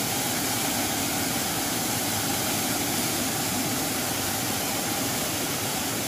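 Waterfall close by, its falling water making a steady, even rushing noise.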